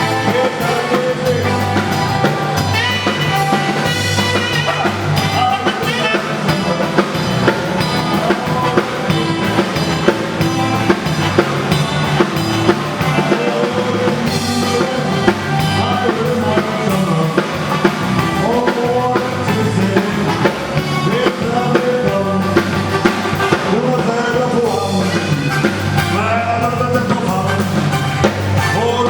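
Music with a drum kit and a bass line keeping a steady beat, with a singing voice over it.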